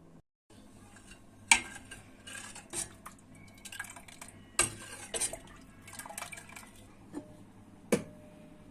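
Dishes and cutlery clinking and clattering: a series of sharp knocks and clinks, the loudest about a second and a half in and near the end, one of them leaving a short ringing tone.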